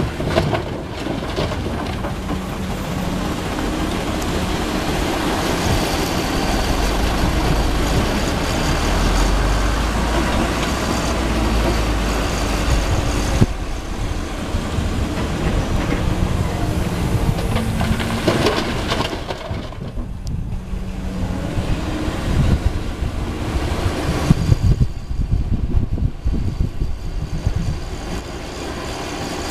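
Caterpillar 320D hydraulic excavator working gravel: its diesel engine runs steadily and swells under load, with a heavy low rumble for several seconds. Sharp knocks and clatter from the bucket and rock come now and then, one loud knock about halfway through.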